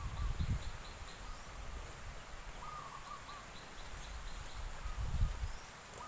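Birds calling: a short mid-pitched phrase repeated about every three seconds, with a quick run of five or six high chirps twice. Low rustling bursts come near the start and about five seconds in, as leafy cut fodder is handled.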